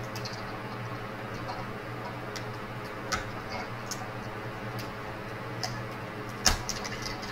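Scattered light clicks and taps, with one sharper, louder knock about six and a half seconds in, over a steady low hum.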